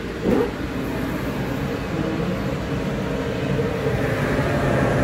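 AC Infinity Cloudline T6 inline exhaust fan running at its top speed setting of 10, a steady low hum.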